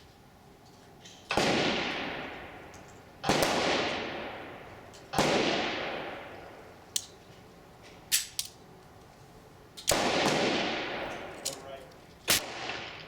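Replica Colt Paterson percussion revolver firing four shots, each ringing out and fading over about two seconds, with sharp clicks of the hammer being cocked and falling in between. The weak mainspring doesn't always set off the percussion caps, so some hammer falls only click.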